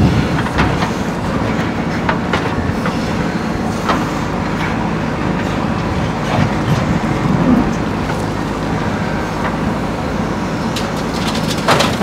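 JCB 3DX backhoe loader's diesel engine running steadily under load while the backhoe arm digs and swings, with occasional metallic clanks. Near the end comes a rattle as soil and stones start to spill from the bucket into the tipper truck's steel bed.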